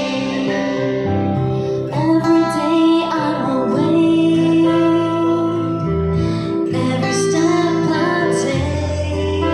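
Music: a woman singing a melody over instrumental accompaniment with a steady bass line.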